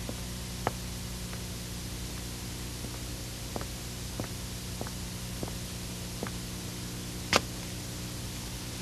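Faint footsteps on a paved path, about one step every 0.6 seconds, with a sharper step about seven seconds in, over a steady hiss and hum.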